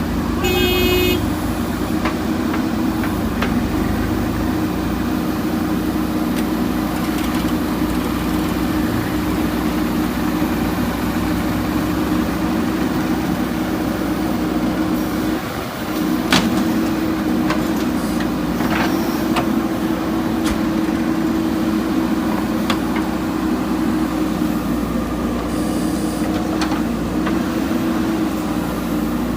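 JCB 3DX backhoe loader's diesel engine running steadily under work, with a short horn toot about a second in and a few sharp knocks of the digging gear near the middle.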